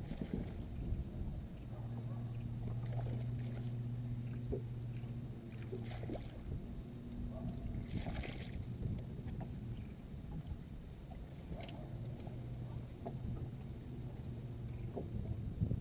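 Bow-mounted electric trolling motor humming steadily, strongest for the first few seconds and then quieter, over a low wash of water against the boat hull. Scattered clicks and a short rush of noise about eight seconds in.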